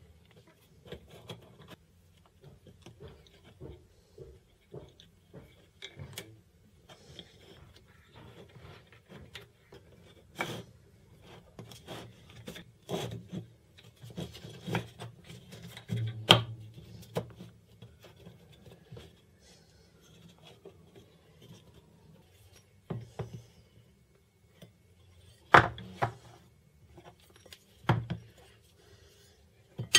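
MDF corner-clamp blocks and frame pieces being handled on a workbench while rubber bands are stretched onto the screw eyes: wood rubbing and sliding on the bench, with scattered sharp taps and clicks. A few louder knocks come about halfway through and near the end, when a steel square is set into the frame.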